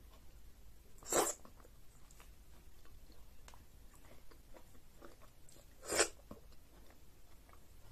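Close-miked eating sounds of egusi soup and fufu eaten by hand: quiet chewing with small lip and tongue clicks, and two louder short wet mouth sounds, about a second in and again about six seconds in, as soup-coated fingers go to the lips.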